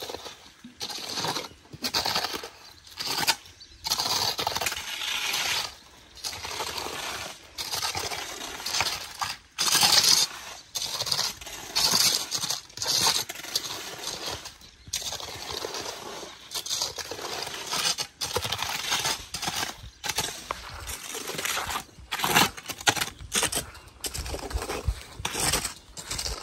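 Mortar and stone work: a run of irregular scraping strokes with light clinks, each stroke lasting up to a couple of seconds with short pauses between.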